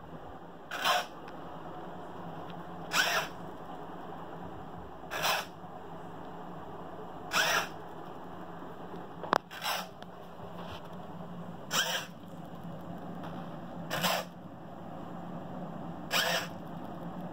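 Small hobby servo motor on a cardboard bin's lid mechanism, whirring in short bursts, eight of them at even intervals about two seconds apart, with one sharp click near the middle.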